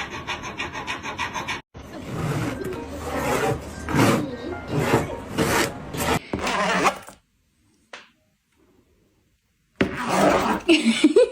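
Music, with a rasping, rubbing sound mixed in; it stops for about two and a half seconds before picking up again near the end.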